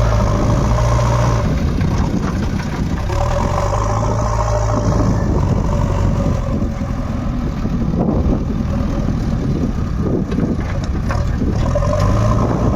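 Heavy diesel engine running steadily. Its even engine note fades into rougher rumbling for stretches in the middle and returns near the end.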